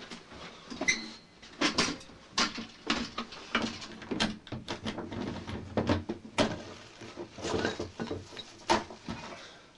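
Irregular knocks, bumps and scrapes of a ceiling loft hatch panel being pushed up and shifted aside by hand, the sharpest bumps about a second in and near the end.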